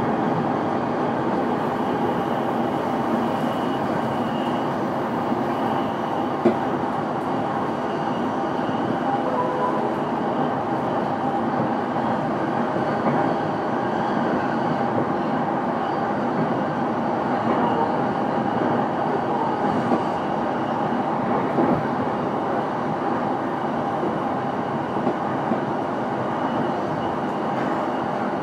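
Interior running noise of a JR East E233-1000 series electric train, recorded in the motor car MoHa E233-1023, running steadily at speed between stations: an even rumble of wheels on rail with a faint high motor whine at times. A few single sharp clicks stand out, about six seconds in and twice near twenty seconds.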